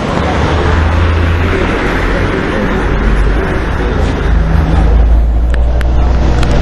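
Road traffic going by close to the microphone: a steady, loud rush of vehicle noise with a deep rumble, growing a little louder after the middle.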